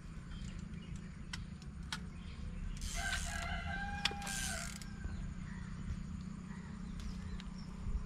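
A rooster crowing once, about three seconds in, a call of about two seconds with a short break in it, over a steady low hum.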